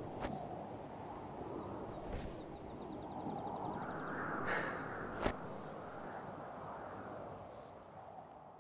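Steady high drone of insects over a soft outdoor ambience, with a few faint rustles and one sharp click about five seconds in; the sound fades toward the end.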